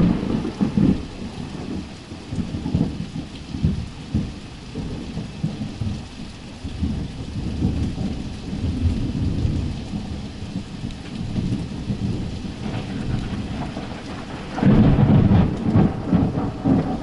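Thunder over steady rain: a loud clap right at the start, then long rolling rumbles, and a second loud peal about fifteen seconds in.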